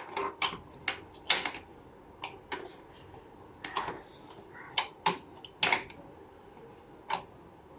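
A toy spanner tapping and scraping against the plastic training wheel of a child's bicycle: about a dozen sharp clicks and knocks at irregular intervals, the loudest a little after one second and twice more around five to six seconds in.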